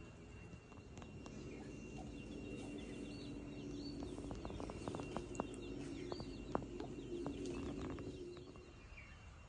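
Outdoor birdsong: small birds giving short high chirps, over a low steady drone that fades near the end, with a few sharp clicks in the middle.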